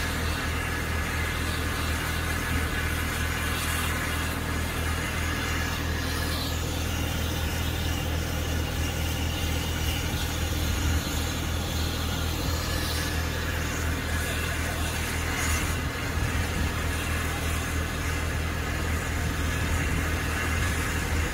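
A steady, unchanging low engine-like drone at a railway platform, with a hiss of steam leaking around the cylinders of a standing steam locomotive.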